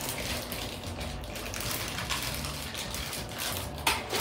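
Plastic Plarail toy train cars being handled and set onto the plastic track, with light rattling over a steady hiss and a sharp click near the end.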